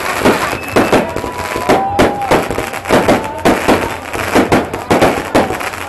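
Aerial fireworks bursting in quick succession: a steady string of sharp bangs, several a second, with a brief whistle about a second in.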